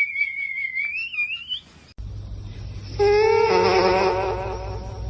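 A sleeping person's high, thin whistling wheeze, wavering and then rising in pitch before it fades out under two seconds in. After a cut, a steady low hum, with a long wavering pitched tone from about three seconds in.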